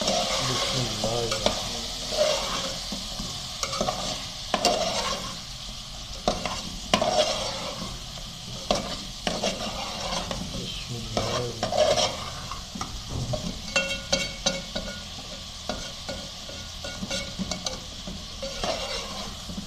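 Chicken pieces sizzling as they fry in oil with nihari spice mix in a metal pot, while a spatula stirs and scrapes them round the pot with irregular knocks against its side.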